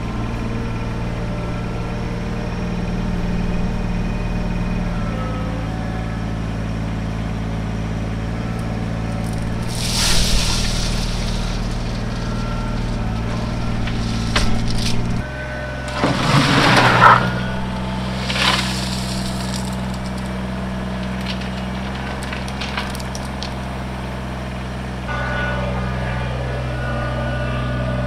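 Kubota BX23S compact tractor's three-cylinder diesel engine running steadily, its note shifting about five and fifteen seconds in. Several loud noisy bursts stand out over it, about ten seconds in and again, loudest, about sixteen to eighteen seconds in.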